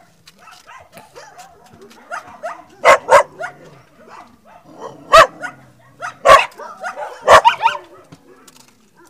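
A dog barking in short, sharp barks: a quick pair about three seconds in, single barks around five and six seconds, another pair near seven and a half seconds, with fainter yips in between.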